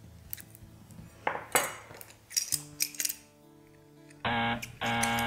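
Small kitchen knife clicking and scraping against a garlic clove as it is peeled. Near the end a loud steady tone sounds twice, each time starting and stopping abruptly.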